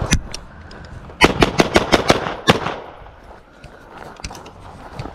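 Rifle gunfire: a single shot, then a rapid string of about eight shots at roughly six a second, followed by a few fainter shots.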